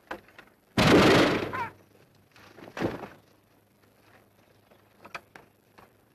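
A single loud gunshot about a second in, followed about two seconds later by a quieter sudden knock.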